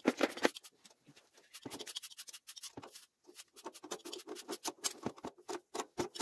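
Short, repeated scratching and scraping with small clicks as hand tools and metal fittings are handled on a boiler's relief-valve piping.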